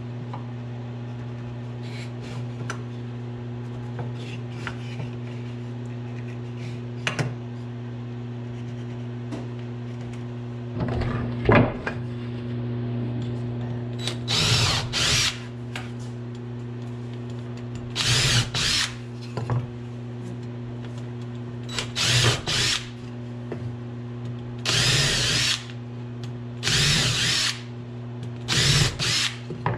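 Cordless drill pre-drilling holes in pine boards, run in repeated short bursts of about a second each from about halfway through. A steady low hum runs underneath.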